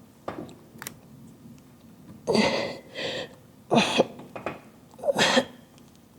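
A man's forceful grunting exhalations, three of them about a second and a half apart, each followed by a shorter breath: effort on each rep of a dumbbell set.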